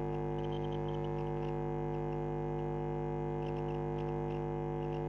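Steady electrical mains hum: a low buzz with a stack of overtones, unchanging in pitch and level.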